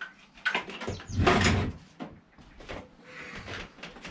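Clicks, knocks and clatter of hand-handled metal parts as a lawnmower's dead-man control bar is taken off, with a louder rattle about a second in.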